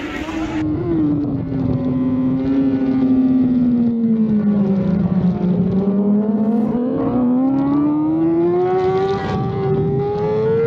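BMW S1000RR inline-four sportbike engine at racing revs, heard from on board, with wind noise: the revs fall for about five seconds, then climb steadily as the bike accelerates.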